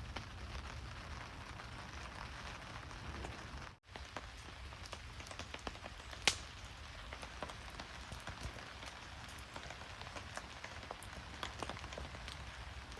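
Steady rain falling, with many small, sharp ticks of drops and one louder tick a little after six seconds in; the sound drops out briefly just before four seconds in.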